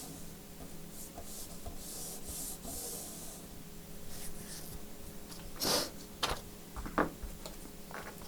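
Hands working on laptop display parts: soft rubbing strokes for the first few seconds, then a few sharp clicks and taps of plastic or metal parts being handled.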